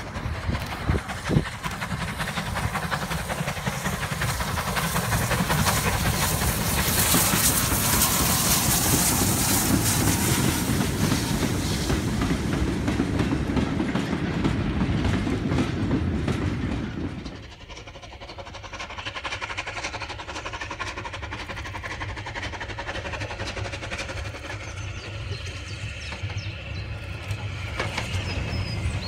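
A steam-hauled goods train passing close by: the locomotive's exhaust and the wagons' wheels clattering over the rail joints, building to a loud peak and then fading. About halfway through the sound cuts suddenly to a quieter, more distant steam locomotive working towards the listener.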